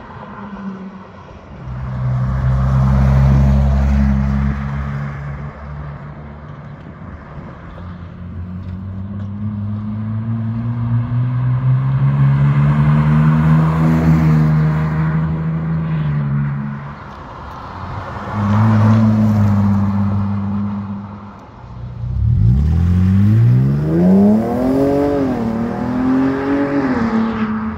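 Ford Bronco Raptor's 3.0 L twin-turbo V6 running through an MRT King of the Hill H-pipe exhaust. It accelerates in several runs, including one close pass, the exhaust note climbing and then dropping back each time. Near the end it rises in quick steps.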